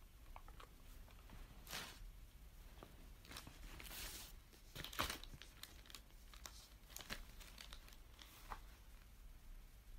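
Near silence with faint, scattered rustles and clicks a few times over the pause.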